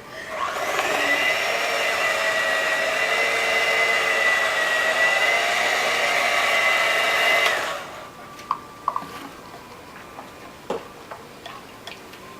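Electric mixer running at a steady speed, beating ingredients in a bowl: it comes up to speed about half a second in, runs evenly for about seven seconds, then switches off suddenly. A few light clicks and knocks follow.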